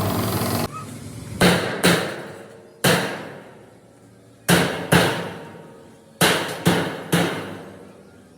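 Hammer blows on metal: eight sharp strikes at uneven intervals, mostly in pairs and threes, each ringing out for about a second. Before them a running engine cuts off abruptly under a second in.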